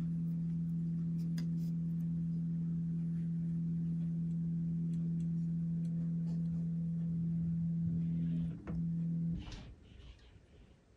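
The Z-axis stepper motors of a LowRider v3 CNC give a steady low hum as they lower the router in a probing move toward a touch plate. About eight and a half seconds in the hum breaks, sounds again briefly, and stops about a second later as the probe touches off.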